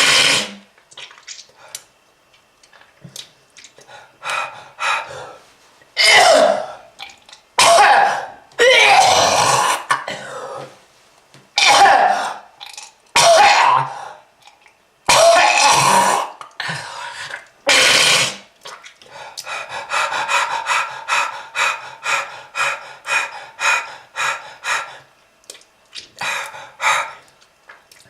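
A smoker coughing hard and hacking, with a series of harsh, wet coughs and throat-clearing as phlegm is brought up. From about two-thirds of the way in these turn into a long run of short, rapid hacking and gasping bursts, about two to three a second.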